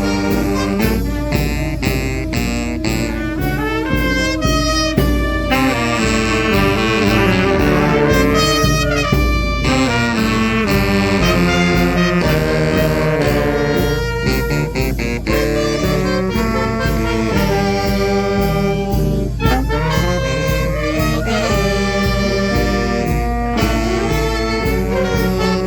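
Fanfare band of brass and saxophones playing a lively tune in unison over a steady drumbeat.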